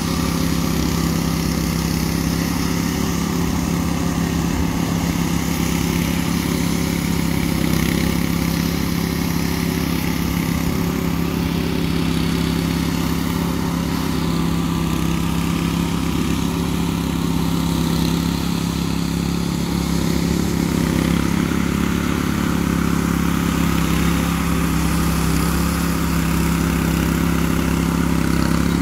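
Several walk-behind power trowels with small petrol engines running steadily while their rotating blades smooth a freshly poured concrete slab. The engine note holds a constant pitch throughout.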